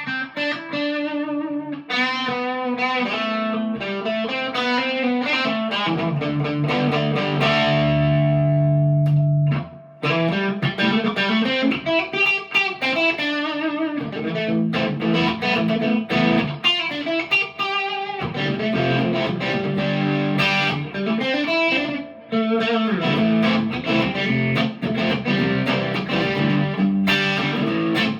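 PRS McCarty 594 Hollowbody II electric guitar played through a Marshall DSL40C amp, picking runs of notes and chords. A chord is held and left to ring from about six seconds in, then cut off just before ten seconds.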